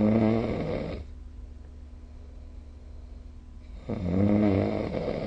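A person snoring: two loud snores about four seconds apart, the first ending about a second in and the next starting near the end, each with a steady low pitch. A low steady hum runs underneath.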